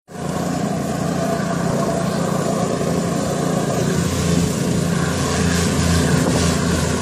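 Vibratory plate compactor's small petrol engine running steadily, a low drone that grows a little louder toward the end.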